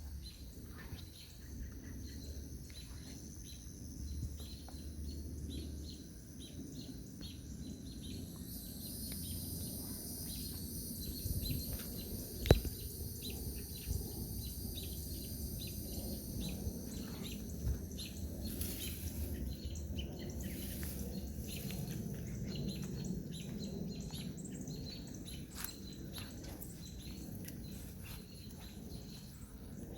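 Summer evening garden ambience: insects trilling steadily at a high pitch, with bird chirps and a low rumble underneath. A single sharp click stands out about twelve seconds in.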